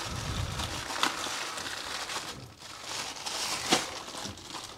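Thin plastic bag crinkling as it is pulled open and handled, with a sharper crackle near the end.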